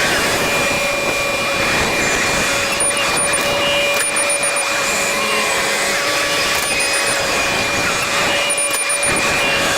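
A farm machine's engine running steadily at a constant speed, with a steady whine over it.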